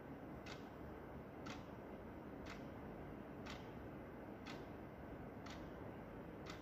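Wall clock's second hand ticking, one sharp tick each second, seven ticks in all, over a steady low hiss.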